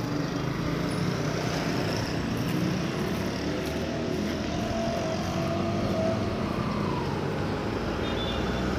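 Street traffic: vehicle engines running steadily as a motorcycle rides past.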